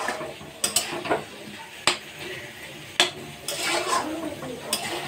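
A spatula stirring soy chunks, potato and papaya frying in a metal kadai, scraping the pan and knocking against its side about six times at uneven intervals.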